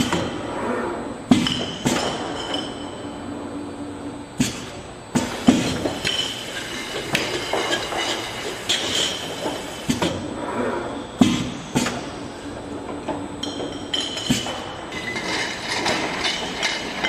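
Automatic inline bottle-filling machine running, with bottles clinking against each other and sharp mechanical knocks at irregular intervals over a steady clatter.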